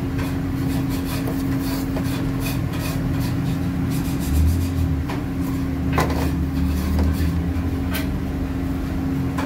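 Kitchen handling sounds: scattered light clicks and rubbing as chocolate chunks and nuts are spread over batter in a baking pan, with a few sharper knocks about halfway through, over a steady hum.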